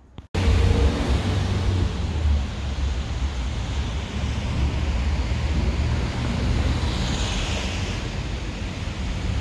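Wind buffeting a phone's microphone: a loud, steady rushing rumble that starts abruptly about a third of a second in, with a faint hiss swelling and fading near the end.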